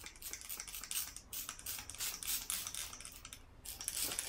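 A hand-pump spray bottle squirting cleaner onto a throttle body inside a plastic bag: a quick series of short hisses, about three a second, with a brief pause near the end.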